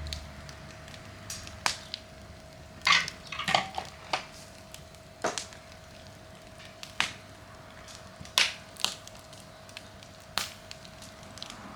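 Wood campfire crackling, with about a dozen sharp irregular pops and snaps over a faint hiss.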